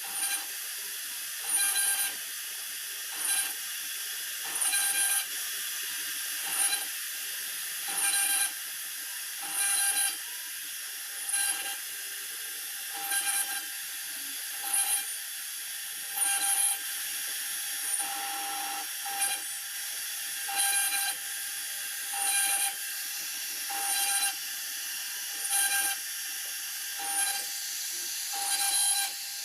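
CNC router spindle cutting a laminated particle-board sheet: a steady high whine broken by short, louder cutting bursts about every second and a half as the bit works through the pattern.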